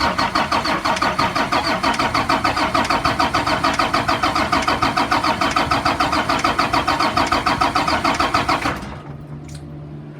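A 2004 Blue Bird All American school bus engine being cranked by its starter motor, a fast rhythmic chugging of about seven strokes a second that stops after about nine seconds. The engine turns over but never fires: it does not start.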